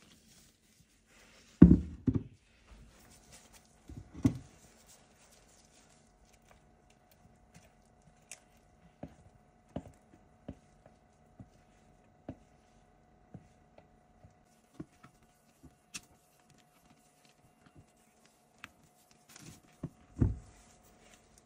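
Heavy glass bowl knocked down on a stone countertop with loud thuds, twice near the start and once near the end. In between, a spatula clicking and tapping against the glass bowl roughly once a second while batter is folded.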